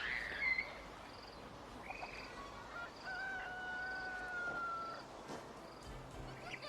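Faint animal calls and chirps, with one long, steady held tone in the middle that falls slightly at its end.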